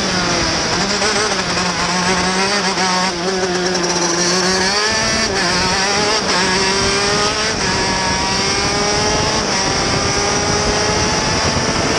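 TM K8 125 cc two-stroke KZ shifter kart engine under hard use, heard on board. Its pitch wavers and dips through the bends in the first half, then climbs steadily from about halfway as the kart accelerates down the straight.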